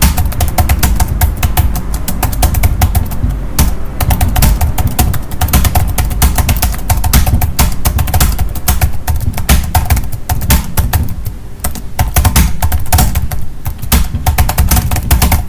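Fast, continuous typing on a computer keyboard during a one-minute typing speed test, keys clicking many times a second at about 78 words per minute, over a low steady rumble.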